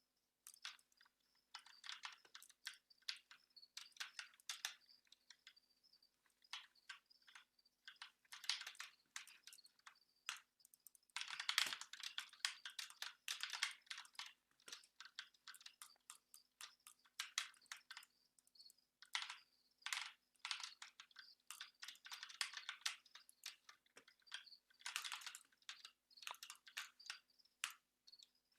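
Computer keyboard keys clicking in quick bursts of typing, with short pauses between runs. The longest and loudest burst falls near the middle.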